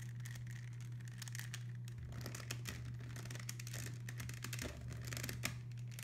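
Plastic clicking and scraping from a GAN 3x3 speed cube being twisted and pried at to pop its pieces out, the cube tight and resisting, with a paper towel crinkling under it. A steady low hum runs underneath.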